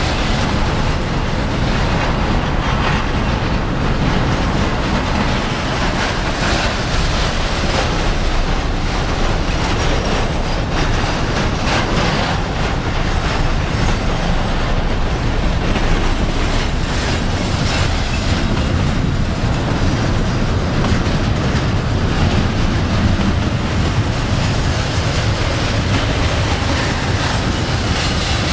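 Double-stack intermodal freight train rolling past at close range: a steady rumble of steel wheels on rail, with a run of clicks as the wheels cross rail joints.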